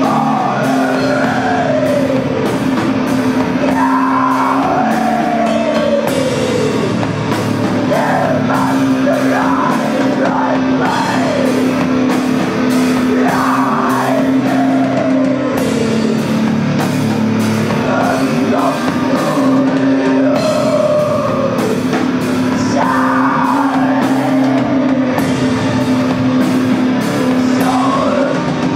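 Live heavy rock band playing: a female vocalist sings long phrases that slide downward in pitch, over a steady droning low note from the strings and drums with cymbals.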